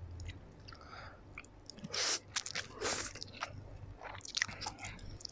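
Close-up mouth sounds of eating spicy black instant noodles: wet slurps of noodle strands, the longest about two and three seconds in, between smacks and chews.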